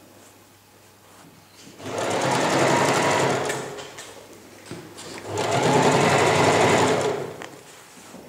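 Domestic electric sewing machine stitching in two runs of about two seconds each, the first starting about two seconds in and the second about five seconds in, sewing a zipper tape onto cotton fabric.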